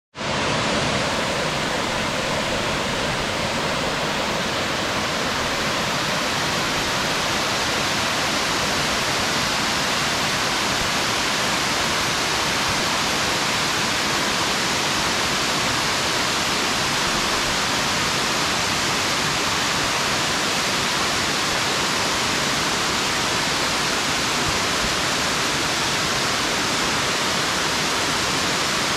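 Waterfall pouring: a loud, steady rush of falling water with no let-up.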